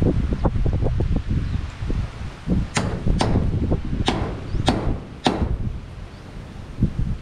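Hammer blows, five sharp strikes a little over half a second apart around the middle, each with a short ring, as corrugated tin sheet is nailed up for a wall. Low wind rumble on the microphone runs underneath.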